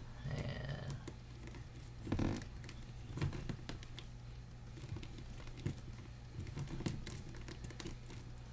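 Plastic action figure being handled and posed: scattered light clicks, taps and rustles, a little louder about two seconds in, over a steady low hum.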